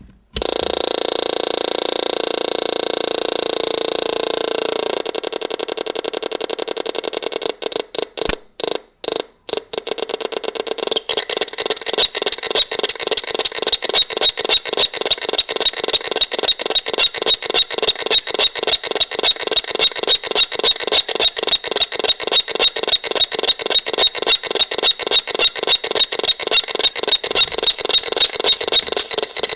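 Abstract electronic sounds from the VAPESONIC RX 21: a steady, shrill, many-toned drone, which breaks into a choppy stutter with short gaps about five seconds in. Around eleven seconds in it settles into a fast, even, alarm-like pulsing.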